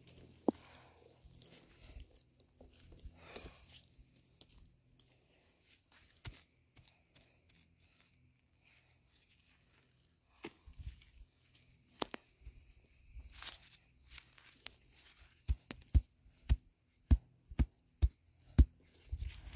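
Gloved hands scraping and crumbling dry dirt while bedding a foothold trap in a dirt hole set, with a few scattered clicks. Near the end comes a run of about eight sharp knocks from a red-handled trapper's hammer striking at the trap bed.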